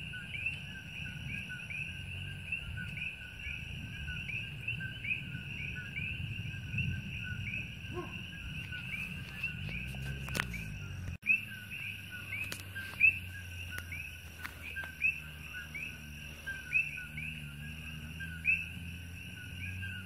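Dense night chorus of coqui frogs, many overlapping two-note calls (a lower note followed by a short rising chirp) repeating several times a second, over a faint low rumble. About eleven seconds in, the sound briefly drops out, and a steady low hum joins after it.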